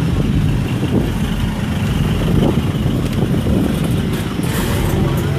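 Road traffic: vehicle engines running close by, a steady low rumble.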